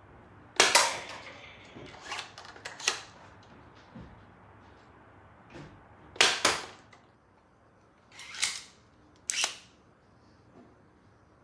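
3D-printed elastic-cord-powered foam dart blaster being primed and fired: about six loud, sharp snaps with quieter mechanical clicks in between.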